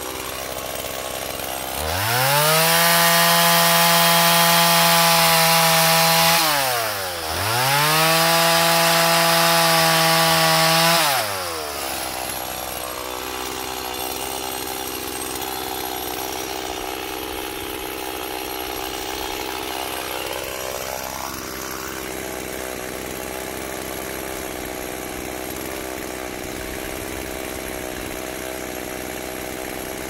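STIHL two-stroke chainsaw revved to full throttle and cutting through a thin log twice, each cut about four seconds long with a brief dip in revs between them. It then drops back to a steady idle.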